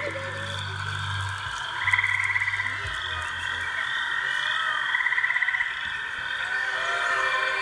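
Frogs calling: a short pulsed trill every two to three seconds over a steady high chorus, with a low drone that fades out about halfway through.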